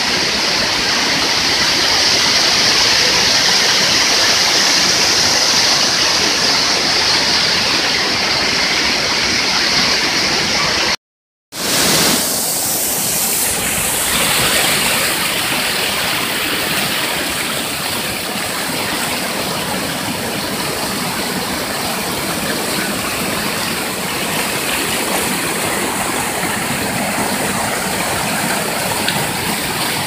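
Small waterfall cascading over rocks: a steady rush of water. It cuts out briefly about eleven seconds in, then resumes with a slightly different tone.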